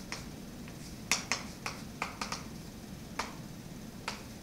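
Chalk tapping and clicking against a blackboard as words are written: a string of sharp taps, several in quick succession about a second in and again around two seconds.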